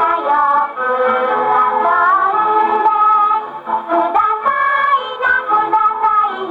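A 1953 Victor recording of a Japanese children's song: a female voice sings the melody over orchestral accompaniment.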